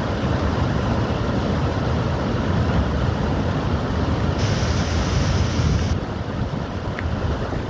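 Steady rush of floodwater pouring over and below a river weir, mixed with low wind buffeting on the microphone; slightly quieter from about six seconds in.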